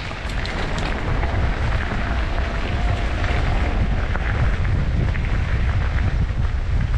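Wind buffeting the microphone, a steady, rough rumble with no breaks.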